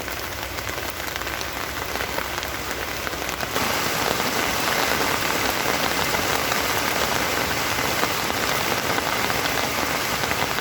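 Rain falling steadily, a dense patter of drops on a surface, turning suddenly louder about three and a half seconds in.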